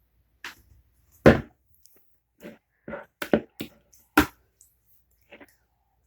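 A string of sharp, irregular knocks and clatters, like a bowl being handled and set down on a hard surface. The loudest comes about a second in and another about four seconds in.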